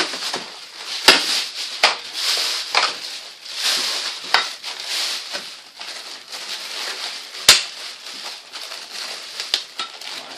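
Plastic packaging bag crinkling and rustling as it is handled, with two sharp snaps, about a second in and near the end.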